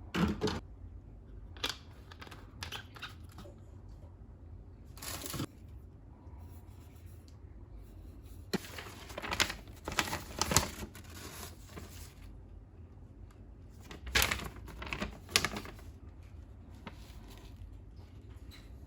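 Toy blaster parts and plastic packaging being handled: scattered clicks, crinkles and rustles in several short clusters, the busiest about halfway through and again near 14 to 15 seconds in.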